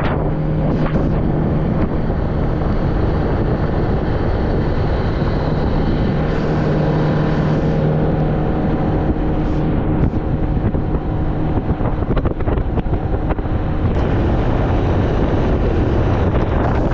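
Motorboat engine running steadily with a low, even drone, wind buffeting the microphone as the boat moves.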